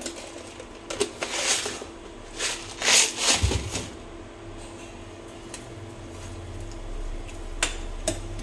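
Kitchen handling sounds as seasoning goes into a soup pot: a few short rustling, scraping bursts and a soft thump, then a low steady hum with a couple of sharp clicks near the end.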